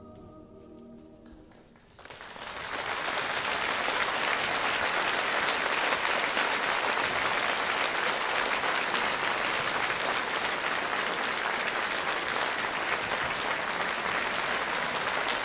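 The last held chord of the choir and piano fades away, and about two seconds in the audience breaks into steady applause that carries on without letting up.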